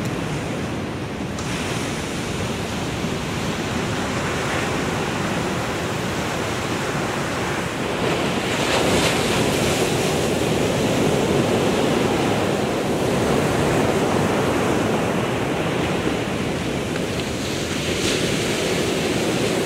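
Atlantic surf breaking and washing up on a sandy beach, a steady roar of waves that grows louder about eight seconds in.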